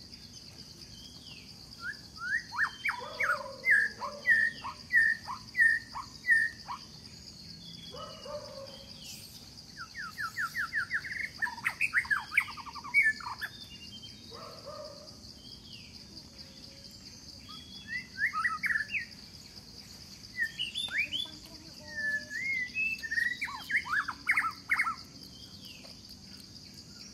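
Birds calling in bursts of quick, sharp down-slurred chirps, one run speeding into a fast trill, over a steady high drone of insects.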